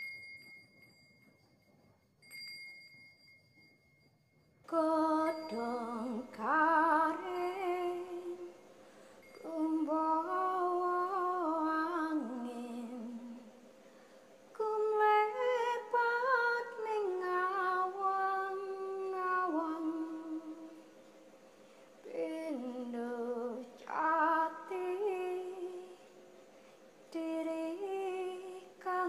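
A woman hums a slow, wordless melody in long, gliding phrases with short pauses between them, over a faint steady note. Before she starts, about five seconds in, a high steady tone sounds twice.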